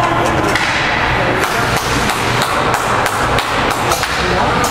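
Ice hockey sticks and puck clacking and knocking in a run of irregular sharp hits as players fight for the puck off a faceoff, over steady rink noise.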